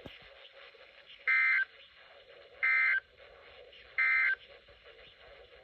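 Emergency Alert System end-of-message signal: three short bursts of data tones, each about a third of a second long and a little over a second apart, over a faint radio hiss. These are the 'NNNN' end-of-message codes that close the severe thunderstorm warning broadcast.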